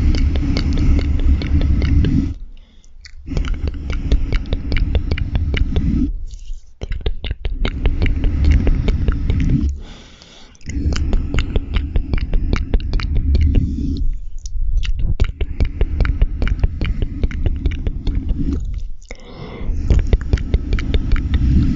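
Close-up mouth sounds of chewing marshmallows: dense clicking and smacking in stretches of a few seconds, broken by short pauses.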